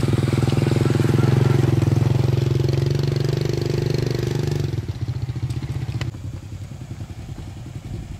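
Small single-cylinder four-stroke underbone motorcycle engine running steadily at low revs close by as it crawls through mud. About four and a half seconds in, the sound drops suddenly to a quieter, pulsing motorcycle engine further off.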